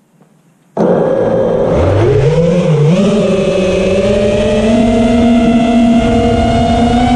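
FPV quadcopter's brushless motors and propellers starting with a sudden loud whir about a second in, the pitch rising steeply as it lifts off and then holding at a steady high whine as it climbs.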